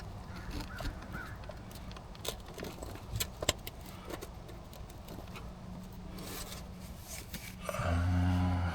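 Small metal clinks and clicks of tools and parts being handled during an oil change, over a low steady hum. Near the end a louder low-pitched hum lasts about a second.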